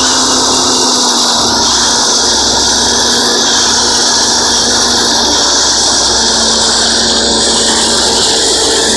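Ajax Argo 4000 self-loading concrete mixer running, its diesel engine and machinery making a loud, steady mechanical noise with a steady whine underneath.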